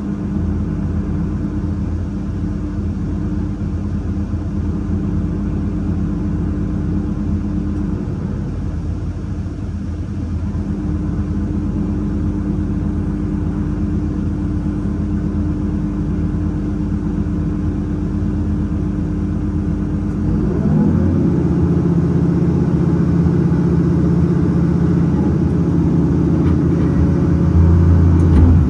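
Heavy diesel engine running at a steady idle, then stepping up to a higher, steady speed about two-thirds of the way through, with a brief louder low rumble near the end.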